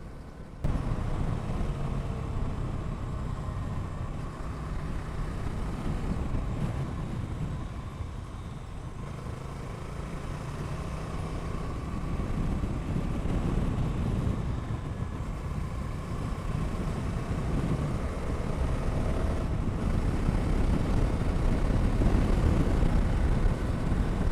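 Motor vehicle running on the move, most likely a motorcycle, with a steady low engine rumble and road noise. It starts abruptly about a second in and grows louder toward the end.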